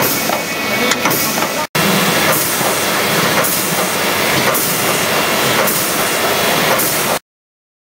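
Food-forming machine running as it shapes squid rings: a loud steady hiss that swells about once a second, with a momentary break near two seconds in, stopping abruptly about seven seconds in.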